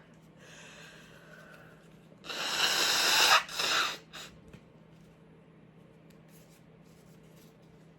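A person sneezing: a breathy build-up, then a loud sneeze about two seconds in, followed straight away by a shorter second burst.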